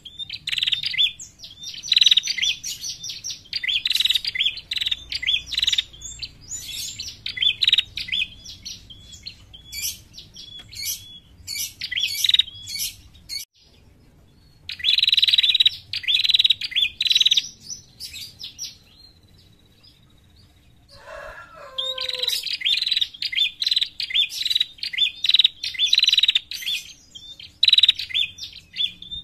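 Female ashy tailorbird (prenjak kepala merah) calling: rapid runs of sharp, high chirps in bursts of a few seconds, with two pauses about halfway and two-thirds of the way through.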